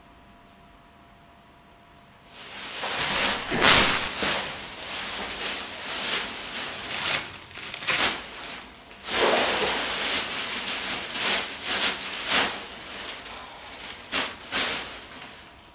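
Plastic bin bag rustling and crinkling loudly as it is handled and filled, in uneven bursts of crackle. It starts about two seconds in, after a short stretch of quiet room tone.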